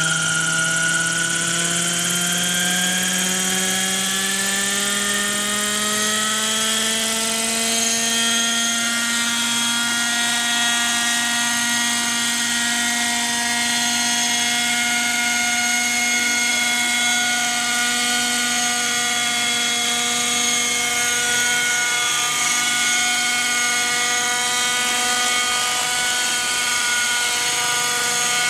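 Vintage Kalt Baron 50-size RC helicopter running on its OS 50 two-stroke glow engine, the engine note rising over the first several seconds and then holding steady.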